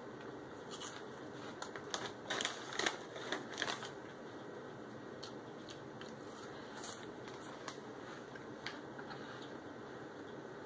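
Crunching of a Chester's Fries snack being bitten and chewed: a cluster of crisp crunches about two seconds in, then a few scattered single crunches.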